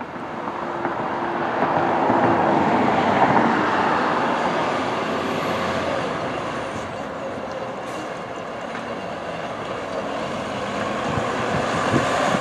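Fire engine's diesel engine running as the truck pulls out of the station and drives off, growing louder over the first two seconds and then holding steady. Two brief hisses come about seven and eight seconds in.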